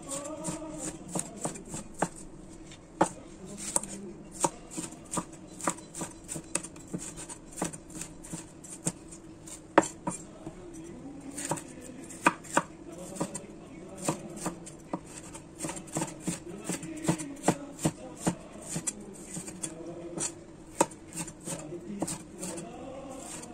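Large kitchen knife slicing bell peppers into strips on a bamboo cutting board: sharp, uneven knocks of the blade striking the board, about one or two a second.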